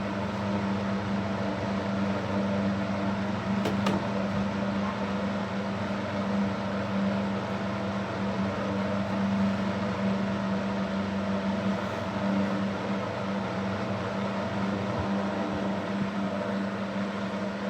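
Super Electric 14-inch box fan, model 1475, running on high: a steady, loud motor hum with the rush of its blades' air. A brief click about four seconds in.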